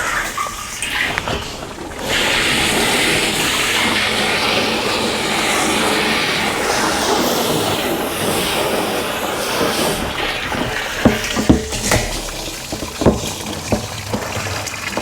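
Water from a garden hose running into a sprayer tank to rinse out mold: a steady rush of water starts about two seconds in and eases off after about ten seconds, followed by a few sharp knocks.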